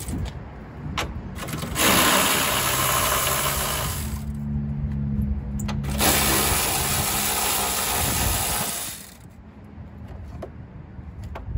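Air-powered tool running in two bursts of a few seconds each, with a loud hiss of exhaust air, while fasteners are backed out in an engine bay.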